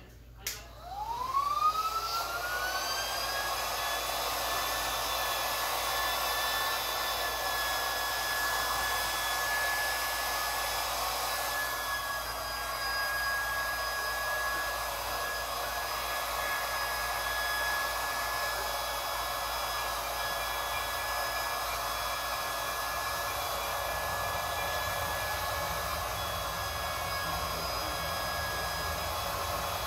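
Small battery-powered handheld air pump clicked on, its motor whining up in pitch over about two seconds and then running steadily as it inflates a kayak's air chamber.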